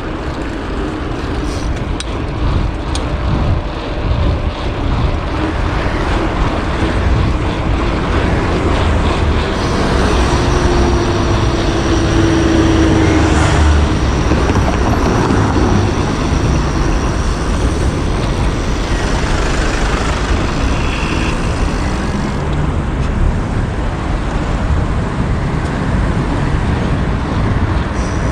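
City road traffic heard while cycling: motor vehicles running and passing, over a steady low rumble, loudest about halfway through as a vehicle goes by.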